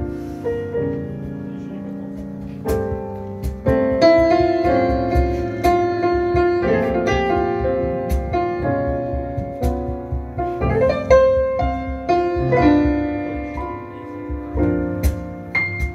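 Blüthner grand piano played solo, a run of notes and chords.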